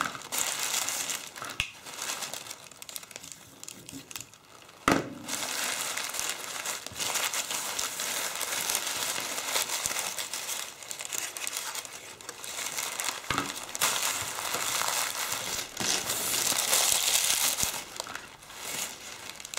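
Thin paper crinkling and crackling as it is crumpled and pressed into shape by hand, swelling and easing in waves, with a sharp knock about five seconds in and a lighter one later.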